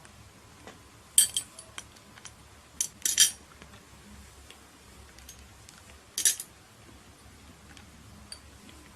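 A few short, sharp clinks, as of small hard objects knocked together: a pair about a second in, a cluster around three seconds, and one more about six seconds in.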